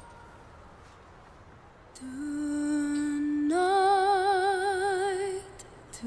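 A woman singing slow, drawn-out notes: after about two seconds of faint hiss she holds one note, then steps up to a higher note with steady vibrato, which stops about a second before the end.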